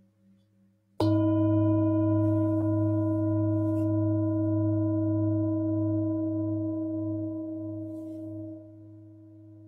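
Tibetan singing bowl struck once about a second in, ringing with a deep wavering hum and several higher overtones that slowly fade. The ring drops abruptly near the end, leaving a quieter tone.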